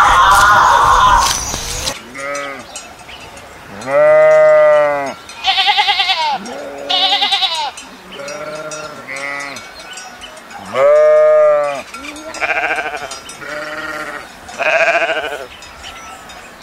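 Sheep and goats bleating: about a dozen separate calls of up to a second each, some high and wavering. A louder noisy sound fills the first two seconds before the bleating starts.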